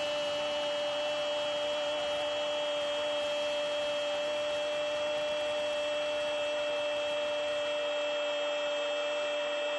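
Television football commentator's long drawn-out goal cry, 'gooool', held on one steady pitch, over a cheering stadium crowd.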